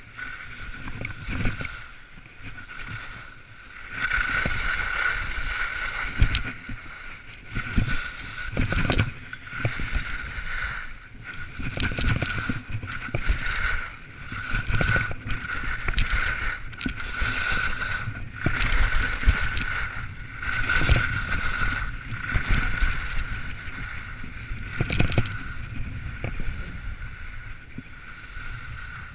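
Snowboard sliding and carving over packed snow close to the camera, the edge scrape swelling and easing with each turn, with scattered sharp clicks and knocks from the board and mount.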